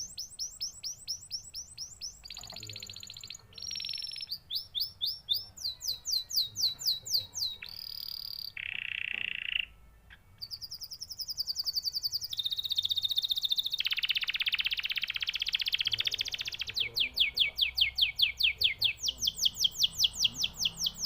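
Canary singing a long, varied song of rapid, high-pitched trills. Each run of quickly repeated notes gives way to a new one every second or two, and the song breaks off suddenly at the end.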